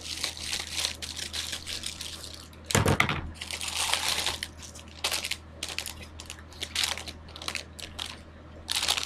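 Packaging being crinkled and torn open by hand to unwrap a pair of fishing gloves, with a heavier thump about three seconds in.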